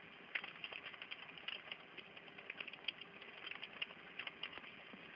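Faint, irregular clicking of keyboard typing, several keystrokes a second, heard over a telephone line with a low hiss.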